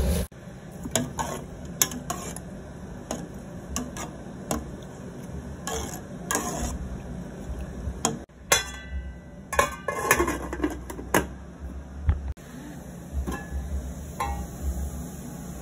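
Metal spoon stirring in an aluminium pot of dried hibiscus calyces and water, with repeated clinks, knocks and scrapes against the pot.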